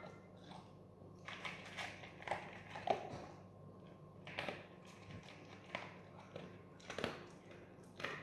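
A dog crunching dry kibble from a plate: irregular short crunches and clicks.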